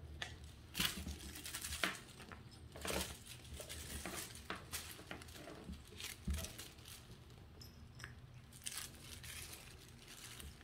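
Soft, scattered rustling and crinkling of a feather wand toy's feathers and shiny strips as Siamese and Balinese kittens bat and bite at it, with light scuffles and taps of small paws on a rug.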